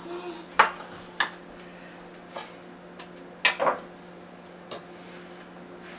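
Cutlery clinking against plates and dishes, about six separate clinks, the loudest about three and a half seconds in.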